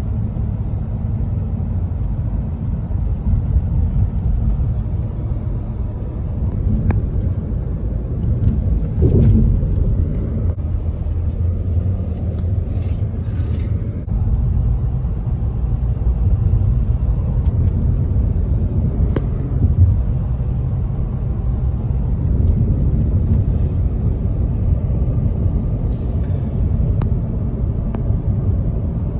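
Steady low rumble of a car driving, heard from inside the cabin: engine and tyre noise, with a few brief hisses and clicks.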